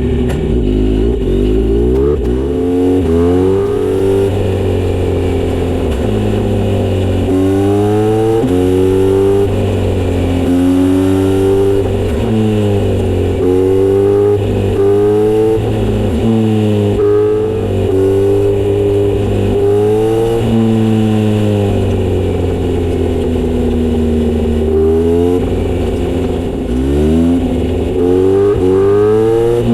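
Kawasaki Z900RS inline-four through an aftermarket Misty Kintaro short exhaust, under way and accelerating through the gears: the engine note climbs in pitch, drops at each upshift and climbs again, many times over, with a steadier stretch of cruising in between.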